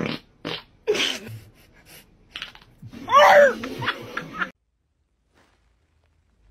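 A puppy yelping once, a short high call that rises and falls in pitch about three seconds in, after a few brief rustles and knocks.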